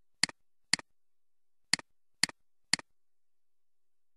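Computer mouse button clicking five times: two clicks half a second apart, then after about a second three more half a second apart. Each is a sharp press followed by a softer release click.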